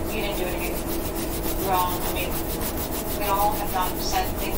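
A Crayola Silly Scents colouring stick rubbing against sketchbook paper as an area is shaded in blue.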